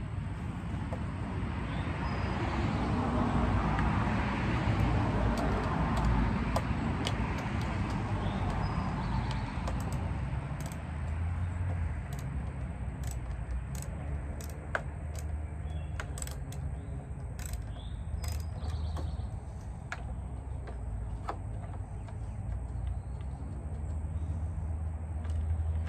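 Scattered metallic clicks and clinks of hand tools on a lawn mower engine as parts are taken off, over a steady low rumble that swells and fades in the first ten seconds. A few faint bird chirps.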